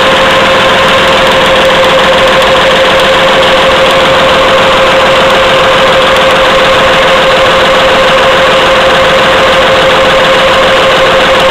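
Automatic pocket tissue making and packing machine running at speed: a loud, steady mechanical noise with a constant tone through it.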